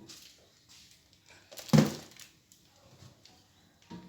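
A single loud knock or clunk of a hard object set down or bumped about two seconds in, amid faint handling clicks in a small room.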